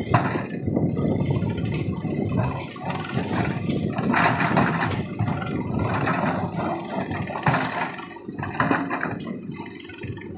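JCB 3DX backhoe loader's diesel engine running under load as the backhoe arm works, with a rushing noise that swells twice and eases off near the end.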